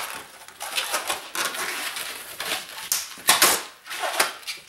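Inflated latex 260 modeling balloons squeaking and rubbing under the fingers as they are twisted: a run of short, irregular squeaks, the loudest a little after three seconds in.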